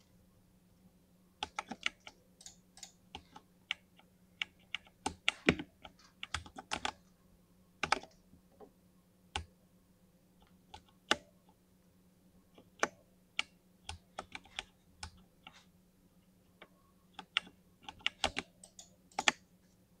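Keys of a mechanical keyboard being typed on: irregular clacking keystrokes in uneven clusters with short pauses, starting after a moment of quiet and bunching up near the end.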